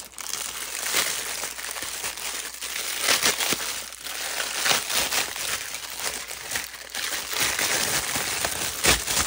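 Clear plastic packaging crinkling and crackling as it is crumpled and pulled off a silicone mold by hand, with a steady run of sharp crackles throughout.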